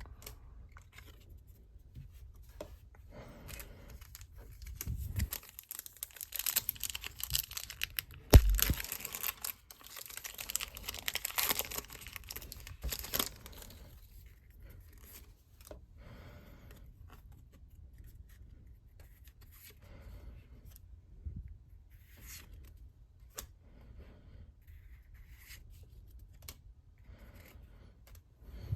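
Pokémon trading card packaging being torn open and crinkled by hand, with bursts of tearing and rustling that are busiest in the first half. A single sharp knock about eight seconds in is the loudest sound.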